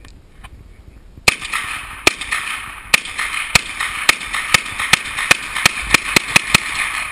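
A JRC 9mm carbine (Just Right Carbine) firing about thirteen semi-automatic shots in a string. The string starts about a second in, and the shots come faster toward the end, roughly three a second at the close.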